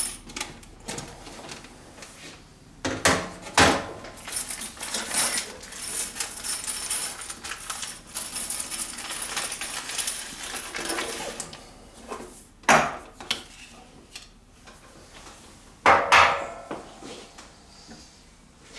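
Objects being handled and set down on a wooden tabletop: a few sharp knocks and clatters, two close together about three seconds in, another near the middle and a double knock near the end, with several seconds of rustling and scraping in between.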